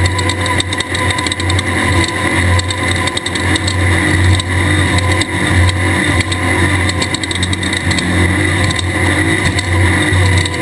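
Class 1/2-1600 desert race car's air-cooled Volkswagen 1600 engine running steadily under load, with many short knocks and rattles throughout.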